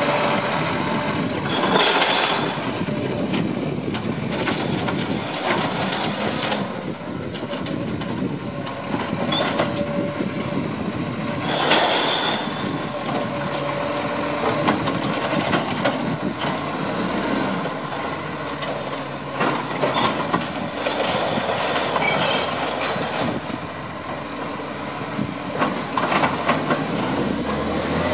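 Side-loader recycling truck working the kerb: its diesel engine runs as the hydraulic arm lifts and tips a wheelie bin, with a few loud, sharp air-brake hisses as the truck stops and moves off.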